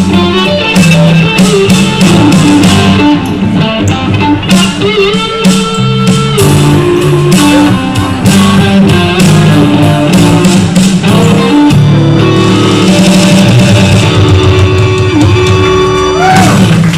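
Live blues-rock jam: a Fender Stratocaster electric guitar plays sustained lead notes, several bent in pitch, over bass and drums. The recording is very loud and close to full scale, matching its poor sound quality.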